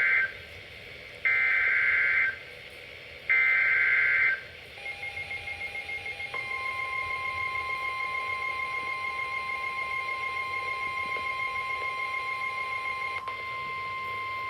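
NOAA Weather Radio emergency alert on Midland WR-300/WR-400 receivers. The end of one SAME digital header burst is followed by two more, each about a second long with a second's gap. From about five seconds in comes a fast-pulsing high alarm beep, joined about a second later by the steady 1050 Hz Warning Alarm Tone. Part of the alarm cuts off near the end.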